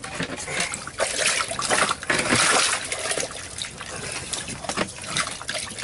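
Water sloshing and trickling in a hole in the ice as a hand reaches in and grips a northern pike to lift it out. Irregular splashes throughout, with a louder splash about two seconds in.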